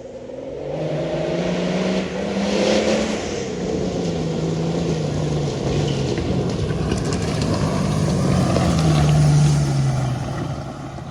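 Off-road vehicle engine revving under load, its pitch rising and falling several times, loudest near the end before easing off.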